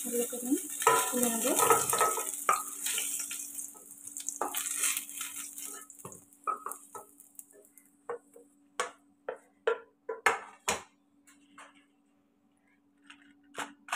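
Vegetable pieces sizzling in hot mustard oil in a kadai as they are lifted out with a wooden spatula. The sizzle dies away about halfway through. Scattered knocks of the spatula against the pan follow.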